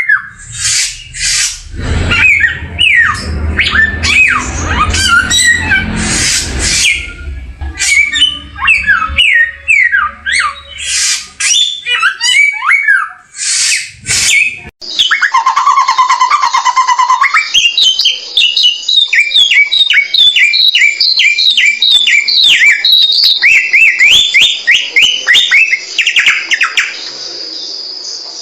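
A songbird sung as a samyong on a masteran training recording: loud, rapid chirps, squawks and whistled phrases in a varied jumble. About fifteen seconds in, the recording switches abruptly to a quick, steady run of repeated short rising notes.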